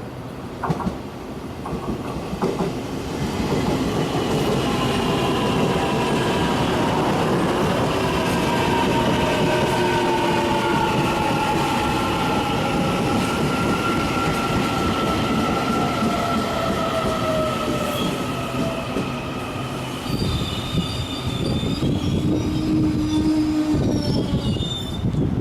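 Taiwan Railways electric train passing close by: wheels rumbling on the rails, with several whining tones that glide slowly downward in pitch. About twenty seconds in, a steady mid-pitched tone and higher tones take over briefly.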